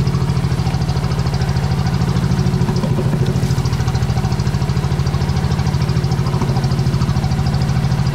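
A boat's engine running steadily with a deep, even, rapid throb.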